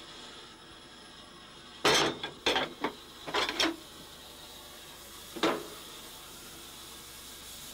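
Firewood knocking and clattering in the firebox of steam locomotive 042 271 as it is laid for lighting up: a quick run of five or six knocks about two to four seconds in, then one more about five and a half seconds in.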